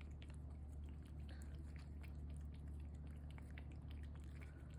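Cats licking and lapping a lickable puree treat: faint, quick wet smacking clicks, over a steady low hum.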